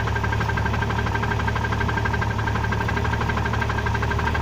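Car engine idling with the automatic transmission in Drive, a steady rhythmic knock running through the idle. This is the knock the owner is checking between Drive and Neutral.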